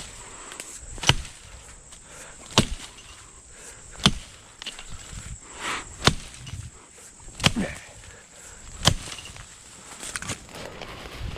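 An axe chopping into wood, about seven hard strikes spaced about a second and a half apart.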